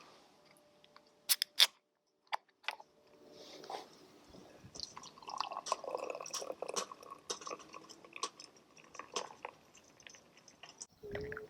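Two sharp clicks, then beer being poured into a glass: gurgling liquid with the foam crackling and fizzing.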